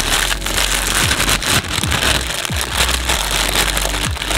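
Biryani rice tipped out of a plastic bag onto a plate: the plastic crinkles and the rice patters down in a dense rustle, with background music underneath.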